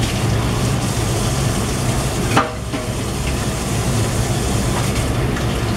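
Curry bubbling at a boil in a wok on a gas stove, over the steady hum of a kitchen extractor fan. A single short knock comes about two and a half seconds in.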